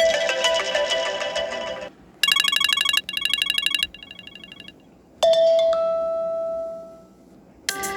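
iPhone ringtones played one after another, each cut short after a second or two: a chiming melodic phrase, then several runs of rapid beeping pulses, then a single struck tone that rings and fades over about two seconds.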